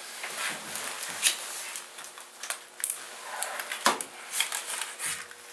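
A deck of playing cards being handled and dealt: irregular rustling and light clicks, with a sharper click about a second in and another near four seconds.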